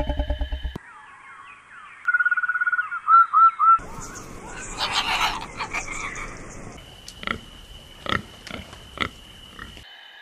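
A string of separate animal calls: a tiger's low pulsing growl that ends just under a second in, then bird chirps and a quick trill with a few loud whistled notes, then the harsh, noisy screech of a sulphur-crested cockatoo, and several short sharp calls near the end.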